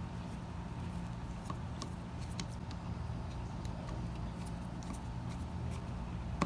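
Screwdriver turning out the float-bowl screws on the bottom of an S&S Super E carburetor: scattered faint clicks and ticks of metal on metal, over a steady low hum.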